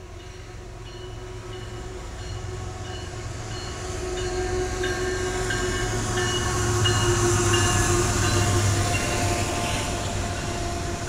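Double-stack intermodal freight train rolling past, its steel wheels rumbling on the rails and growing louder to a peak past the middle, then easing slightly. Thin, high squealing tones from the wheels come and go over the rumble.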